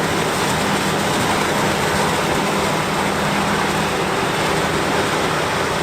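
A heavy machine's engine running steadily: a dense, even noise with a constant low hum that does not change in pitch or level.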